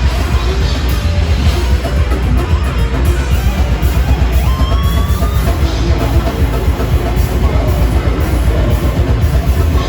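Metal band playing live, loud: electric guitars and a drum kit in a dense, unbroken wall of sound.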